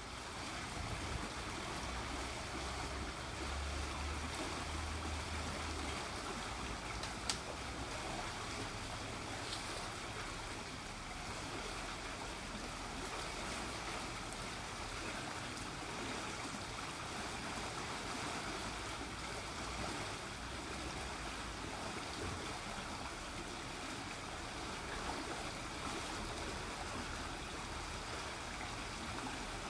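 Small stream running fast over a shallow stretch, a steady rushing and bubbling of water, with one brief click about seven seconds in.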